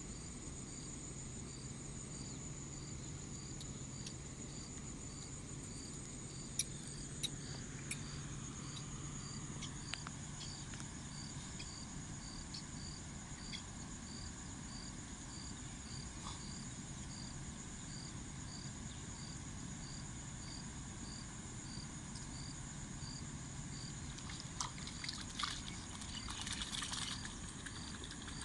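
Insects chirping steadily: a high continuous trill with a regular pulse about twice a second. A few sharp clicks come about seven seconds in, and a rustle near the end.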